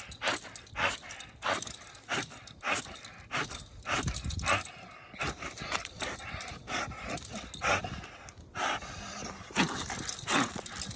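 American bully dog breathing hard while it works: a rhythmic run of short noisy breaths, about two a second.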